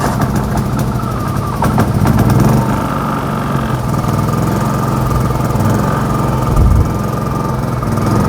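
Champion 4500-watt inverter generator just started by remote, its engine coming up to speed with a few clicks in the first couple of seconds, then running steadily with a low hum and a thin high whine.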